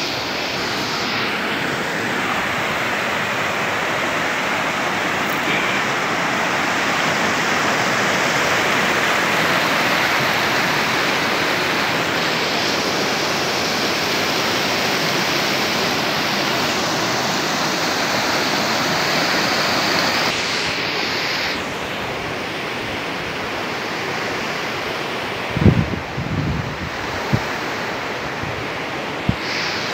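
Fast mountain stream rushing over rocks and rapids, a steady loud rush of water that eases slightly about two-thirds of the way through. A few brief low thumps come near the end.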